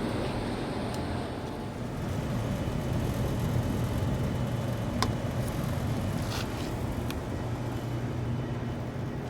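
York rooftop package unit running with both compressor stages and the condenser fan on: a steady low hum, with a few light clicks in the middle.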